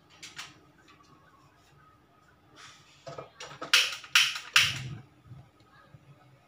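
Short noisy handling sounds of cooking preparation, three loud ones in quick succession a little past halfway, with a few fainter ones before them.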